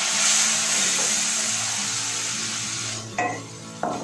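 Chilli-and-spice masala paste sizzling in oil in a steel wok as a wooden spatula stirs it. The sizzle fades near the end, where the spatula knocks against the pan twice.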